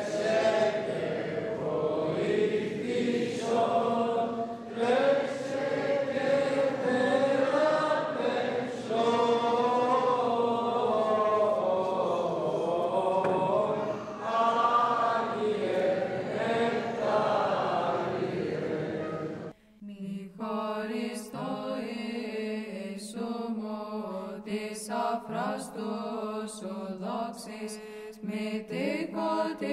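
A man's voice chanting an Orthodox church hymn into a microphone, the pitch wavering slowly. About two-thirds of the way through it cuts abruptly to a different recording of chanting.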